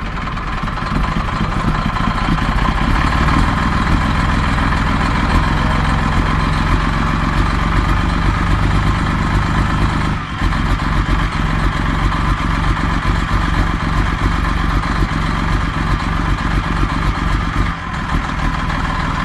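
Detroit Diesel Series 60 inline-six diesel idling rough just after a hard start, on a low-mileage engine that is running badly and smoking. It gets a little louder about a second in and dips briefly twice.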